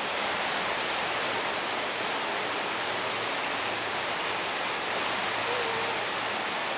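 Steady rush of river water pouring over a small cascade into a pool, an even noise that does not change.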